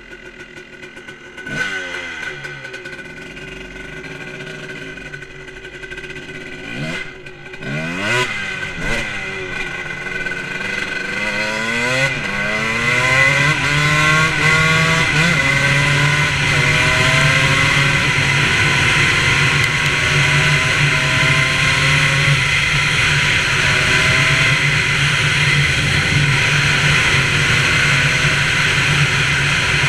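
Motorcycle engine blipped a few times at low speed, then revving hard up through the gears, the pitch climbing, dropping at each shift and climbing again. For the last several seconds it holds a steady high speed.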